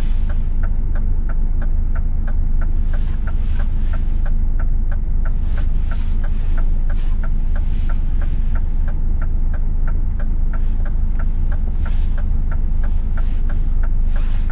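Scania S500 truck's V8 diesel running at low revs, heard inside the cab as a steady low hum, with the dashboard indicator ticking evenly about three times a second.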